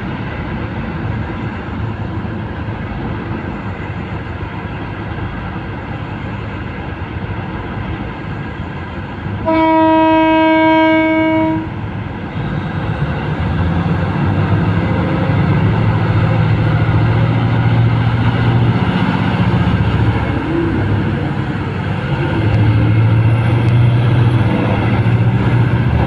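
Large hydraulic mining excavator running steadily with a continuous machine noise. A single horn blast of about two seconds sounds near the middle. From a little after the horn, the machine noise grows louder, with a heavier low rumble.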